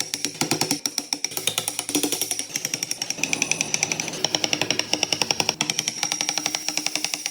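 Rapid, even tapping from wood-carving tools at about eight strikes a second, with background music.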